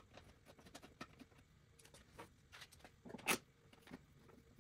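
Faint clicks and light handling sounds of hands and a small screwdriver on a plastic controller housing, with one louder short knock about three seconds in.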